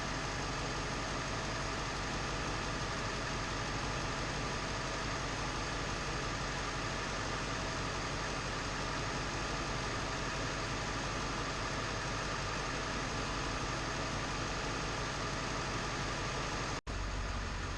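Ford 7.3 L Powerstroke turbo-diesel V8 idling steadily, running on its newly installed Hydra performance chip. The sound drops out briefly near the end and comes back with a different low tone.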